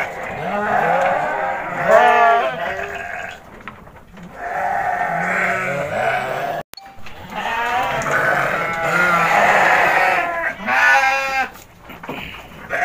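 Several sheep bleating in a crowded pen, their wavering calls overlapping one another, loudest about two seconds in and again near the end. The sound cuts out for an instant around the middle.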